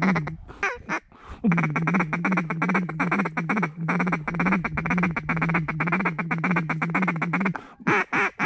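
Mallard duck call blown in a long, fast chatter of quacks on one steady pitch, breaking off briefly about a second in, then a few separate single quacks near the end. This is calling to work ducks that are coming in.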